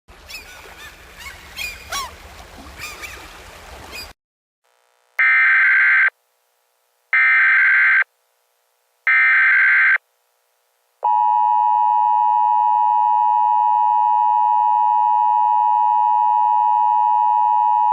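Emergency Alert System broadcast signal: three loud, buzzy data bursts about two seconds apart (the SAME header), then the steady two-tone EAS attention signal. It opens with about four seconds of quieter, indistinct wavering sound.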